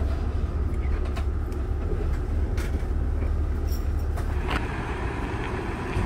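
Steady low rumble of bus engines idling at a bus terminal, with a few faint clicks.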